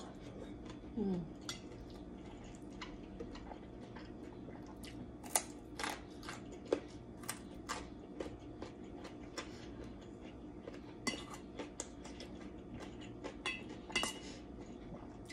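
Metal spoon and fork clicking and scraping against stainless steel bowls and a metal tray, scattered irregular clinks, with some chewing, over a steady low hum.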